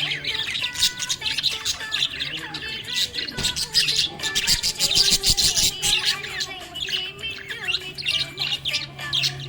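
Budgerigar chirping and warbling in a fast, continuous stream of short high notes.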